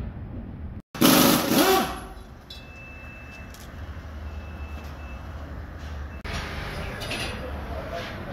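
Pneumatic impact wrench working a wheel's lug nuts in one loud burst of about a second, its pitch sliding as it spins, followed by steady low tire-shop noise.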